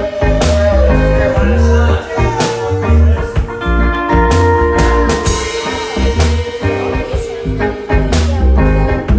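Live blues played on a hollow-body archtop electric guitar over a steady kick-drum and snare beat.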